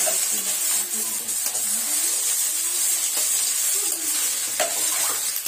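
Shredded bamboo shoots frying in mustard oil in a kadhai, a steady sizzle, with the spatula scraping and stirring them a few times.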